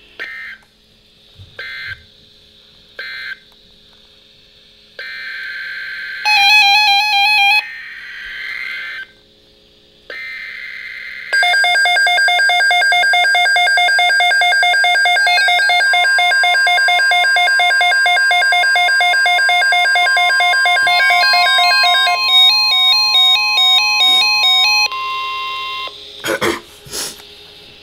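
NOAA Weather Radio alert data between two flash flood watches: three short digital data bursts, then three longer data bursts of the next alert's header. Then a loud electronic alarm melody of buzzy beeps, changing to a warbling two-note pattern near the end, with a steady warning tone under it for about ten seconds.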